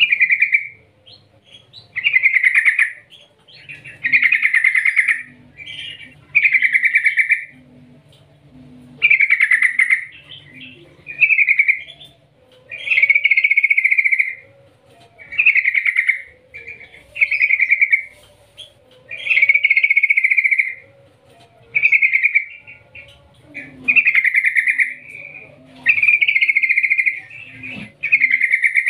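Yellow-vented bulbul (trucukan) singing: a run of short, loud, bubbly phrases, about one every two seconds, with brief pauses between them.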